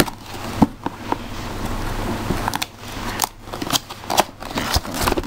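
Cardboard and plastic packaging of a wireless keyboard-and-mouse set being worked open by hand: irregular clicks, snaps and scraping.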